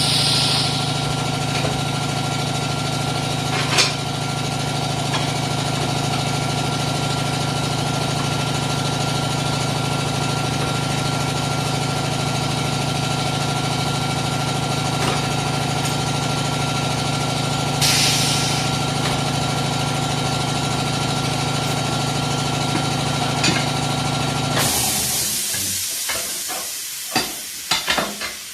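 A machine motor runs with a steady hum, then stops about 25 seconds in. At that moment a loud hiss of escaping compressed air starts, followed by several sharp clicks near the end.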